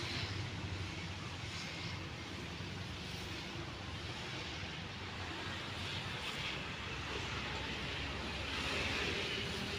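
Diesel locomotive engine running in the distance: a steady low drone that swells slightly near the end.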